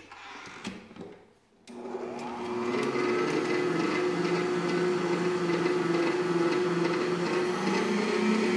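Electric stand mixer, after a few clicks, switched on about two seconds in: its motor whine rises as it spins up and settles into a steady run as the wire whisk beats egg yolks, sugar and oil into a cream.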